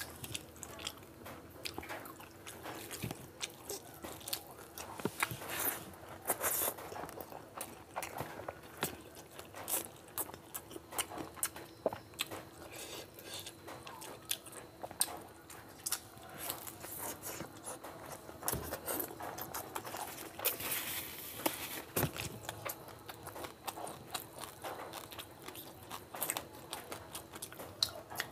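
Close-miked eating: wet chewing, smacking and mouth clicks of a man eating rice and chicken and fish curry by hand. Fingers squish and mix the rice and curry on the plate between mouthfuls.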